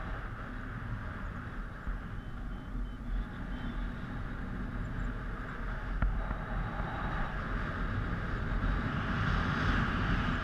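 Wind rushing over a helmet-mounted GoPro's microphone in paragliding flight: a steady low rumble with hiss, growing louder toward the end.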